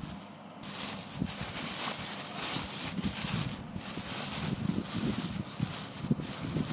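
Thin plastic bags crinkling and rustling as hands pull open a blue carrier bag and the clear wrap inside it, in irregular crackles that grow louder toward the end.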